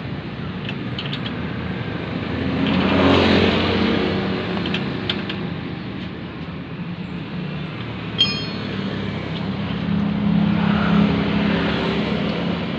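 Motor vehicle engines running, the sound swelling louder twice as they pass, with a short high beep about eight seconds in.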